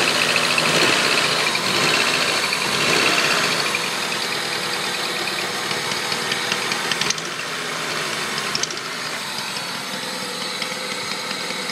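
Honda Civic D16Z6 SOHC four-cylinder engine running with a ticking or clicking that gets faster at higher rpm. Its speed rises and falls a few times in the first few seconds, then it settles to a steadier idle. The owner believes the tick comes from cylinder 4; it persists although the head is new, the valves are adjusted and the timing belt is right.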